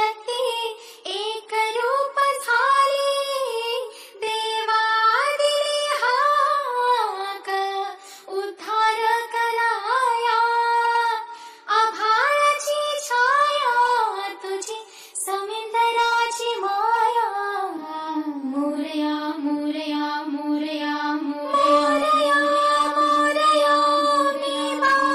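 High singing voice carrying a melody, with no bass or drums beneath it. About eighteen seconds in, a steady held drone note joins under the voice.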